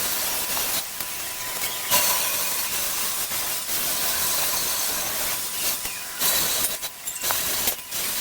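Welding arc crackling and hissing in stop-start runs on the scooter's sheet-steel body panels, with brief pauses between welds.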